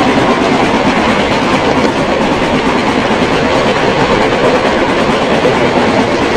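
Model railway train running along its track, heard from on board: a steady rumble and rattle of wheels rolling on the rails.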